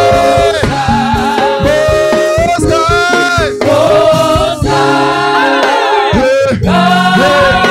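A church worship team and choir singing a gospel praise song, with held notes and a steady beat under the voices.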